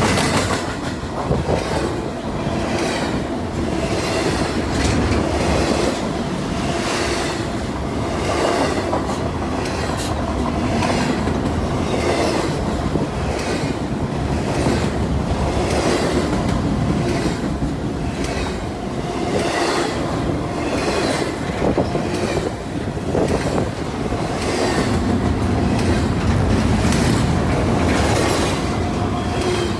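Intermodal freight train's container cars rolling past close by: a steady clickety-clack of wheels over rail joints, about one beat a second, with some wheel squeal.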